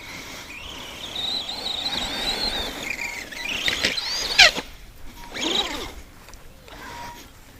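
Arrma Granite RC monster truck's electric motor and gear drivetrain whining, the pitch rising and falling with the throttle, then a few sharp sweeps as the motor spins up and down, the loudest about four and a half seconds in.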